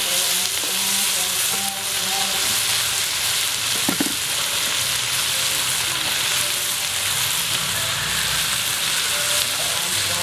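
Diced pineapple, bell pepper, tomato and onion sizzling steadily in a hot wok while being stirred with a wooden spatula.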